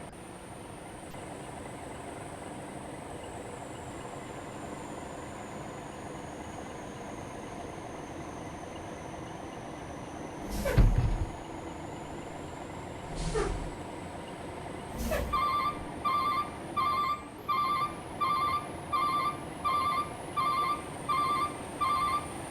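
Steady hum of a running vehicle, broken by three short, sharp noises a little before and after the middle. From about two-thirds in, a vehicle's reversing alarm beeps at one fixed pitch, about one and a half times a second.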